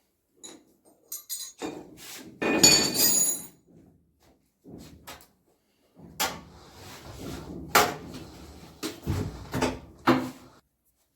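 Hard parts clattering and knocking as they are handled during a washing machine bearing repair. There is a longer ringing metallic rattle about two seconds in, then several separate sharp knocks.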